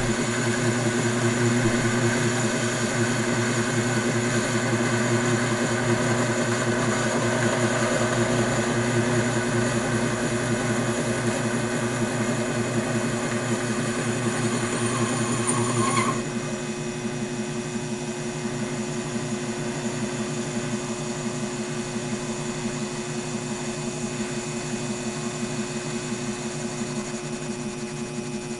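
Taig lathe running steadily while its ball turning tool cuts a small stainless steel ball. About sixteen seconds in, a higher whine stops suddenly and the running goes on a little quieter.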